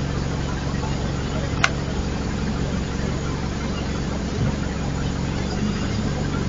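A vehicle engine idling steadily, with a single sharp click about one and a half seconds in.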